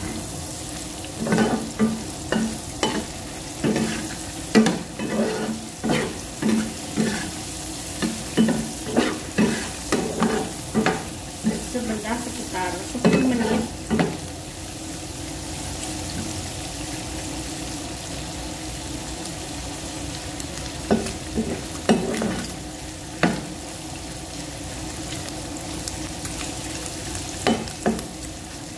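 Baby squid frying in oil in a pan, sizzling steadily, while a metal spatula scrapes and clacks against the pan as it turns them. The strokes come about once or twice a second for the first half, stop for a stretch of plain sizzling, then come again a few times later on and near the end.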